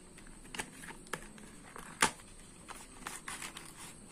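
Small cardboard box of an LED lamp being handled and opened by hand: soft rustling and scraping with scattered small clicks, and one sharp tap about two seconds in.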